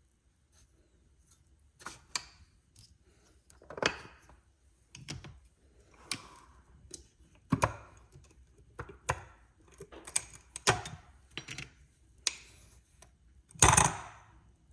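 Irregular clicks and knocks of kitchen utensils and dishes being handled, about a dozen, with the loudest, longest clatter near the end.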